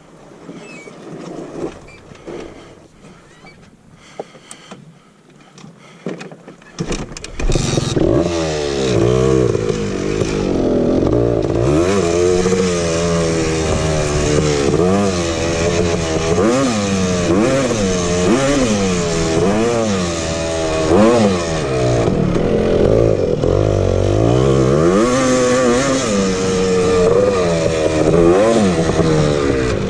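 Honda TRX250R's two-stroke single-cylinder engine being ridden hard off-road, revving up and dropping back again and again. About seven seconds in it comes in loud; before that there are only quieter scattered knocks and clatter.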